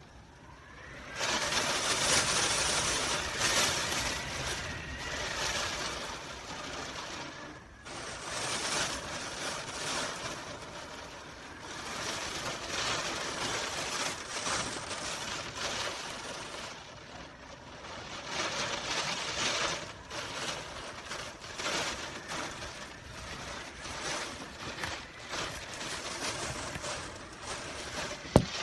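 Hurricane wind gusting, a loud rushing noise that swells and eases every few seconds. A single sharp knock near the end.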